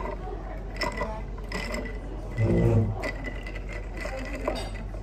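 Short clicks and scrapes of ice in a tall glass of iced latte as it is handled and stirred with a straw, over café background hum, with a brief low hum about halfway through.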